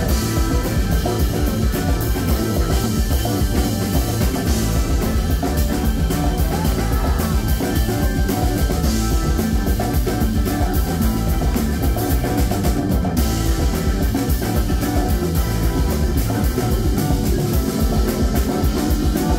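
Live rock band playing: drum kit and electric guitar with keyboards and organ.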